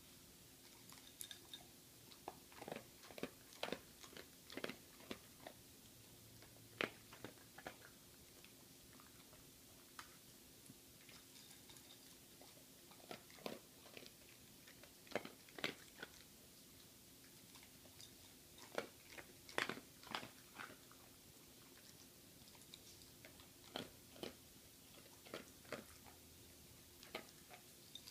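A small dog crunching dry kibble: sharp crunches come in short clusters, with quiet pauses between mouthfuls.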